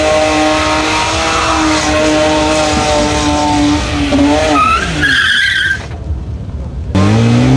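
A car engine held at high revs while the driven tyres spin and screech through smoky donuts. About four seconds in the revs drop and a high tyre squeal rings out, then after a short quieter moment the engine revs up again near the end.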